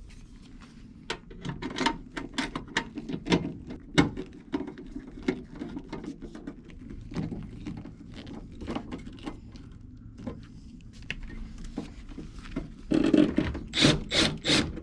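Irregular sharp clicks and light taps, several a second, with a louder, busier stretch of handling noise near the end.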